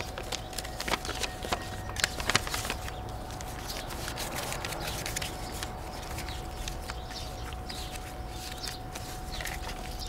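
Paper banknotes rustling and crackling in short irregular flicks as they are taken from an envelope and counted by hand, over a steady thin background tone.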